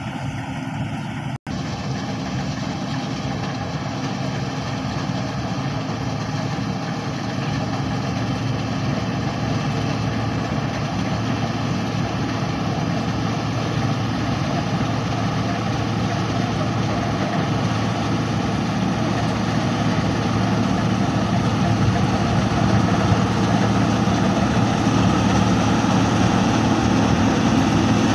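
An 8070 combine harvester running steadily while it cuts and threshes ripe rice, growing louder as it comes closer. The sound cuts out for an instant about a second and a half in.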